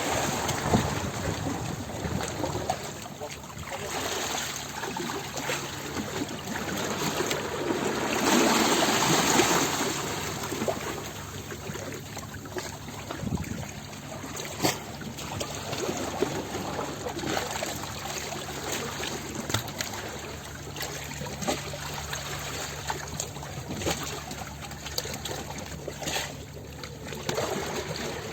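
Running water trickling and gurgling with small splashes, swelling louder for a couple of seconds about eight seconds in.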